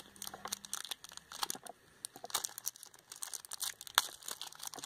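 Paper leaflets and packaging rustling and crinkling as they are handled, with a quieter stretch in the middle and a sharp click about four seconds in.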